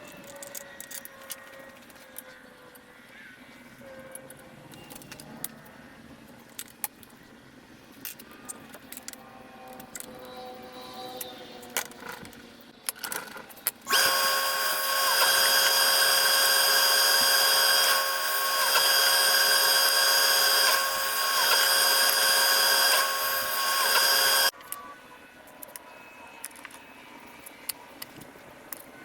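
Scattered small clicks and knocks of tool and wood handling, then an electric power tool starts abruptly about halfway through. It runs with a steady whine for about ten seconds, dipping briefly a couple of times, and cuts off suddenly, followed by more clicks.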